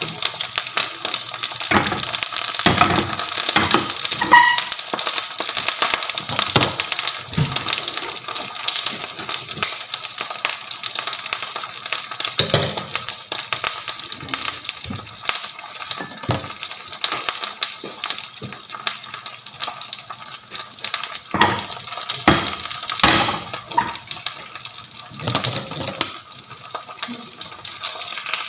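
Onion pancake frying in hot oil, a steady sizzle with crackling spatter, and a few sharp knocks from a utensil against the pan.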